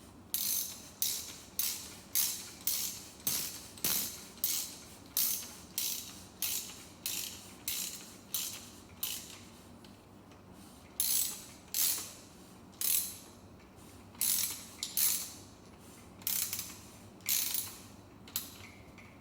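Socket ratchet clicking in short runs, about two a second, as it turns a bottom bracket tool to thread in a Shimano BB-UN26 bottom bracket cup. The runs pause for about a second and a half near the middle, then go on.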